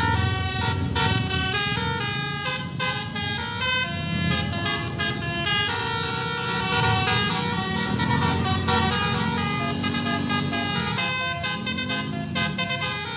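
Bus 'telolet basuri' multi-trumpet musical air horn playing a tune note after note over a running engine, with repeated rising-and-falling glides in the second half.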